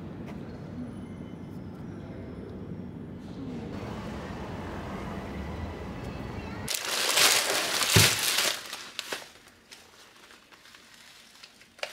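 Steady low outdoor background noise, then a loud rustling, crinkling noise for about two seconds, then quiet.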